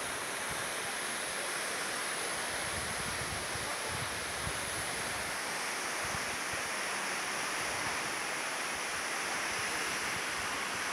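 Steady outdoor rushing noise, with wind buffeting the microphone now and then.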